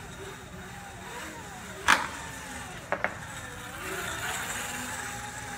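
Electric mini trials bike's motor whining, its pitch rising and falling as the throttle is worked. A sharp knock about two seconds in is the loudest sound, followed about a second later by two quick clicks.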